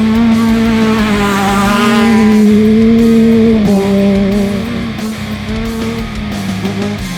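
Rock background music led by electric guitar holding long notes with vibrato.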